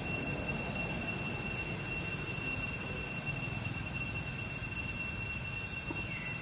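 Steady high-pitched insect drone, one unbroken tone with fainter overtones above it, dipping briefly in pitch near the end, over a low rumbling background noise.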